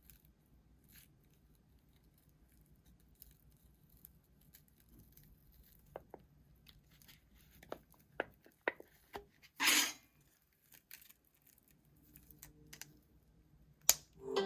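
Samsung Galaxy S10 back glass being pried and peeled off its adhesive: scattered small clicks and scrapes from the opening tools, and a short tearing sound about ten seconds in.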